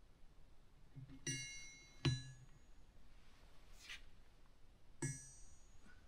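Metal clinking on a steel anvil as a short aluminum sleeve is handled and set down. There are three contacts: two bright ringing clinks, about a second in and near the end, and a sharper, louder knock just after two seconds.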